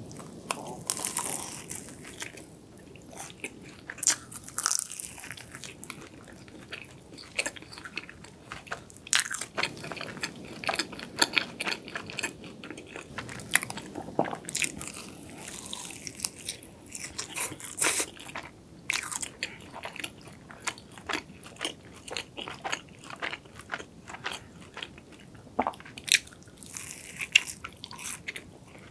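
Close-miked biting into and chewing a flaky, sugar-coated chocolate-cream cronut. A crunchy bite comes at the start, then continuous chewing with many small crisp crackles from the laminated pastry.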